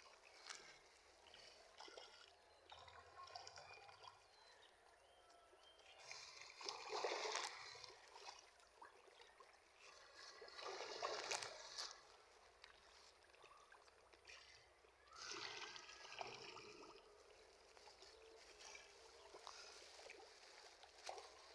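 Quiet water sounds: faint trickling, swelling into three louder bursts of splashing about seven, eleven and sixteen seconds in.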